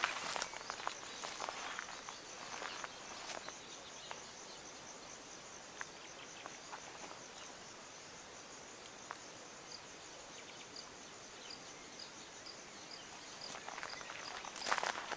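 Insects trilling steadily on a high note, with footsteps rustling through dry vegetation during the first few seconds and again near the end. In the second half a series of faint high chirps repeats about twice a second.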